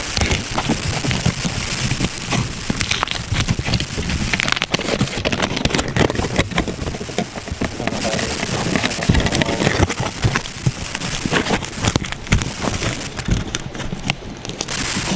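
Aluminum foil crinkling and crackling close to the microphone as a hand squeezes and handles the foil wrapped around the mic cable, a makeshift shield against interference noise. The crackle is dense and irregular throughout.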